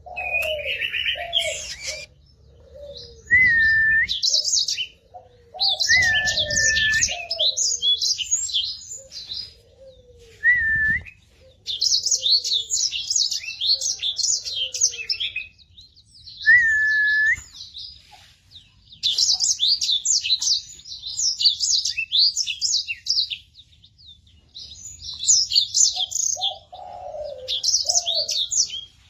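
Sanger (black-throated canary) singing: long phrases of fast, high twittering broken by short pauses, with a clear whistled note repeated now and then. Lower falling call notes and a few dull thumps sound underneath in the first half.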